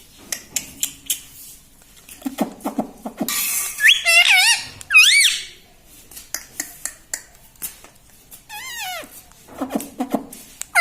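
Pet ring-necked parakeet calling and chattering: sharp, wavering high-pitched squeaks at about 4, 5 and 8.5 seconds, lower chattering sounds between them, and scattered clicks.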